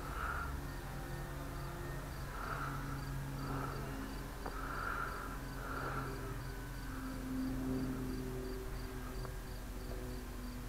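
A cricket chirps steadily in a regular pulse of about three chirps a second. Under it runs the faint, wavering drone of a distant electric RC warbird's motor and propeller, its pitch shifting as the plane flies.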